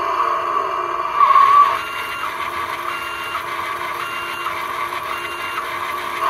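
The electronic sound effects of a Road Rippers Lake Lurker toy monster truck, played through its built-in speaker while the toy's wheels spin. A steady electronic sound comes first. From about two seconds in, the toy gives four short beeps about a second apart, like a reversing alarm.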